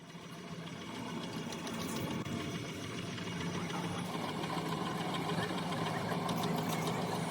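A workshop machine running steadily with a low hum and a fast, fine rattle, fading in over the first couple of seconds.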